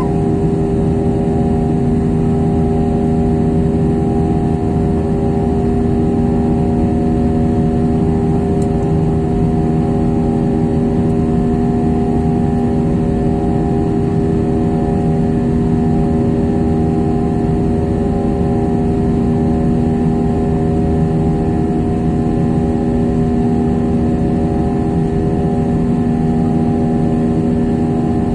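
Jet airliner's turbofan engines heard inside the passenger cabin while climbing: a loud steady drone with several held tones over a rushing hiss.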